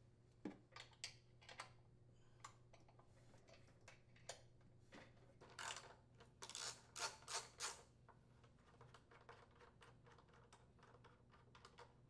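Faint metallic clicks and taps from a 3/8-inch socket tool working the engine's blower housing mounting bolts loose, with a brisker run of louder clicks, about three a second, around the middle.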